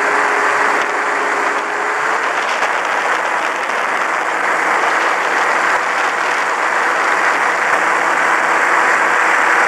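Light aircraft in flight, heard from on board: a steady engine drone under loud rushing airflow, unchanging throughout.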